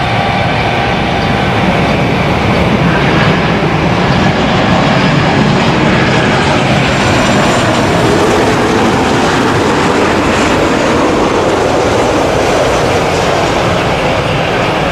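Jet noise from a Boeing 737-800 airliner's CFM56-7B engines on final approach, flying low past: a loud, steady rumble with a faint high whine.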